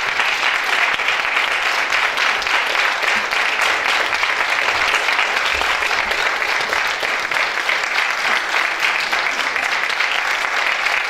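Theatre audience applauding at a curtain call: dense, steady clapping from a full hall.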